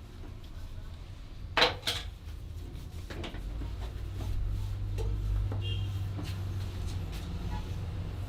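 A back massage: a few sharp snaps of hands slapping or cracking on the client's back, the loudest a quick pair about a second and a half in, with weaker ones after. A low steady rumble lies underneath and grows louder about halfway through.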